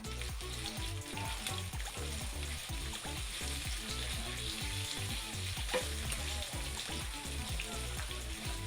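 Pork belly (liempo) sizzling steadily as it grills, a continuous crackling hiss, with background music and a steady low bassline underneath.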